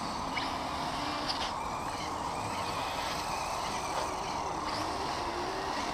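Steady hiss with the faint, wavering whine of a radio-controlled vehicle's small electric motor running.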